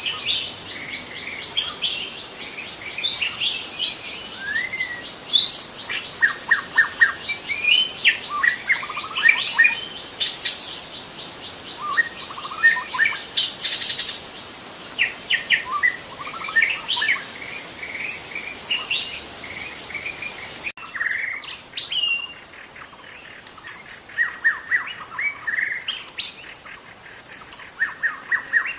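White-rumped shama singing: a varied run of clear whistles, quick sweeping notes and rapid trills in short phrases. A steady high insect drone runs under it and cuts off suddenly about two-thirds of the way through, after which the song goes on more quietly.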